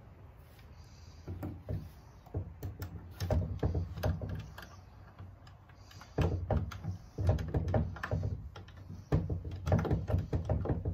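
Lock picks scraping and clicking inside the seized lock of an old wooden cedar chest, with irregular knocks and rattles against the wood as the lock is worked. The knocking starts about a second in and grows louder and busier about halfway through; the lock does not give.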